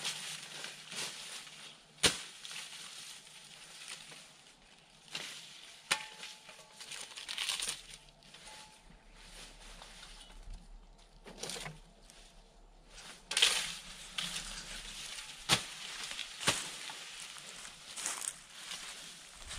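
Sugar cane stalks being chopped by hand, a sharp crack every few seconds, amid the rustle and crackle of dry cane leaves being pushed about.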